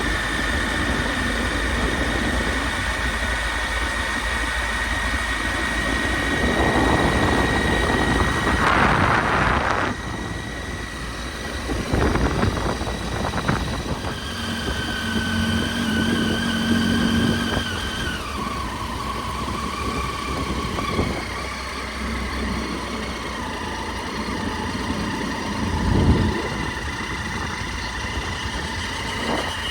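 Triumph Tiger 800 XC's three-cylinder engine running under way, with wind and road noise; its whine steps down in pitch a few times near the middle, and there is a brief louder swell near the end.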